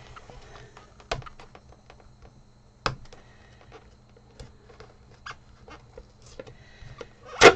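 Fingernails picking at and peeling packing tape off the end cap of a cardboard tube: scattered small clicks and crackles, with one loud, sudden noise near the end.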